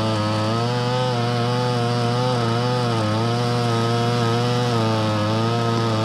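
Homelite Super XL Auto two-stroke chainsaw at full throttle cutting through a large log. The engine pitch sags and recovers several times as the chain loads up in the wood.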